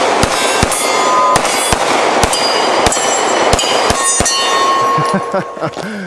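A SIG P365 XL 9mm pistol fired in a rapid string of about ten shots, with steel targets ringing after the hits. The firing stops a little after four seconds in, with the pistol shot empty and its slide locked back, and the steel rings on briefly.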